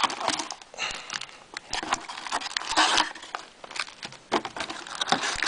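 Crinkling and rustling of trading-card packaging, the box wrap and foil packs, being handled and torn open in irregular bursts.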